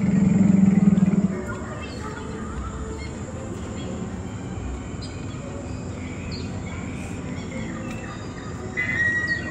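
A forest soundscape played through the installation's speakers: scattered bird chirps and calls over a steady background hush. A louder low hum cuts off about a second in, and a brief high whistle comes near the end.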